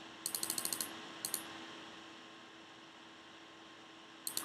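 Computer keyboard typing: a quick run of keystrokes just after the start, two more about a second later, and a few near the end, over a faint steady hum.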